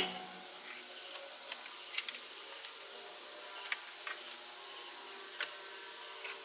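A loud horn-like blast dies away at the very start, then a few light, scattered clicks and taps over a faint steady hum.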